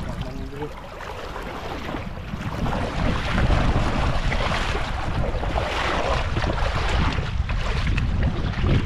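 Wind buffeting the microphone in a low rumble over the steady noise of shallow river water, with the water noise growing louder from about three seconds in.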